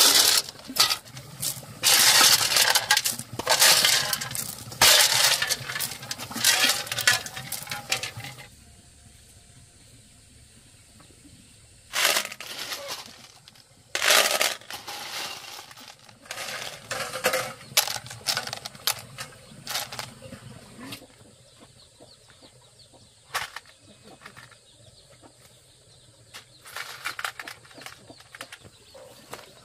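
Snail shells clattering against an aluminium basin and a plastic bag crinkling as snails are bagged by hand, dense and loud for the first eight seconds or so. After that come quieter, scattered rustles and clinks, with two louder bursts of handling a few seconds apart.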